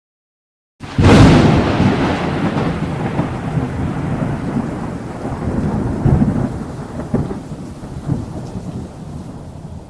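Thunderclap sound effect marking time's up: a sudden loud crack about a second in, then a long rolling rumble that swells a few times and slowly fades.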